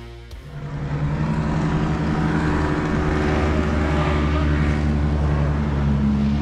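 Motorboat engine running steadily, a low hum with a few held pitches that swells in about half a second in and stays level.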